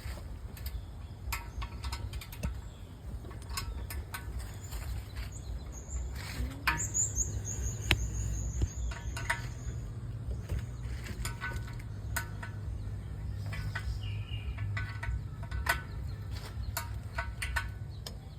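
Irregular metallic clicks and knocks of a socket wrench working the bolts on a deep-well expansion tank, over a low rumble. A short high trill sounds about seven seconds in.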